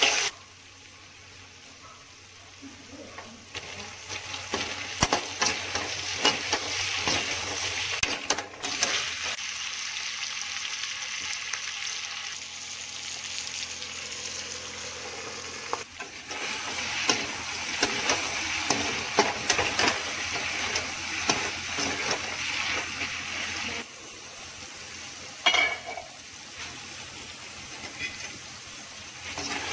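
Pork with onion and tomato sizzling as it is stir-fried in a metal wok, with the slotted metal spatula scraping and clacking against the pan. The sizzle is quieter for the first few seconds.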